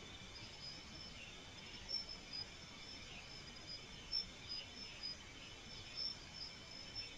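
Night insects, crickets among them, chirping faintly: short high chirps repeating irregularly over a steady high trill.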